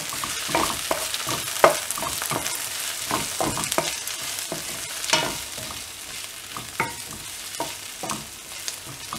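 Onions and tomatoes sizzling in hot oil in a kadai while a wooden spatula stirs them, with irregular scrapes and taps of the spatula against the pan over a steady frying hiss.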